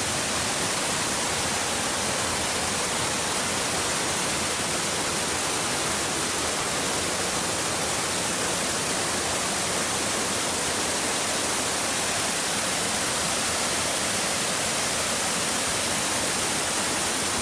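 Waterfall rushing: a steady, unbroken roar of falling water that holds the same level throughout.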